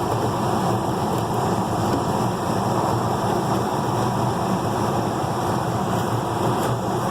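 Gas furnace's fan running: a steady rushing of air.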